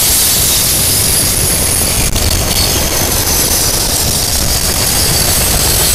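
Freight train cars rolling past close by: a steady, even rumble of wheels on rail with a hiss above it.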